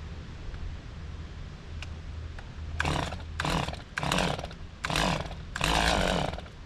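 Chainsaw idling with a steady low hum, then revved in five short bursts of about half a second each over three seconds or so; the last burst is the longest.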